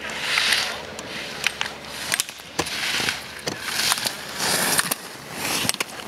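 Slalom skis carving through snow: a scraping hiss swells at each turn, about once a second, with several sharp clacks of slalom gates being knocked aside.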